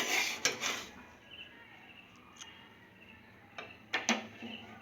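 A spatula scraping and stirring toasted grated coconut in a kadai, a few rough strokes in the first second, then stopping. Two sharp knocks come near the end.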